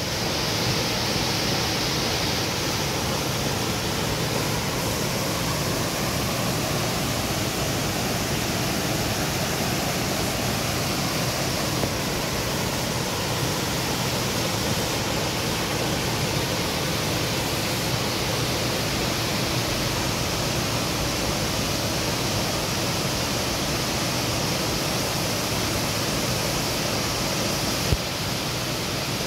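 Steady rushing of water pouring over a waterfall's rocky cascades, with a brief click near the end.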